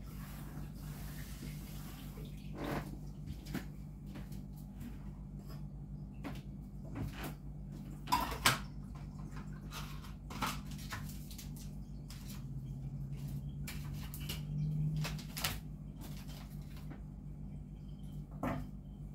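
Kitchen cleaning: scattered knocks and clinks of dishes and objects being handled, the loudest about eight seconds in, with a brief spell of running water at the start, over a steady low hum.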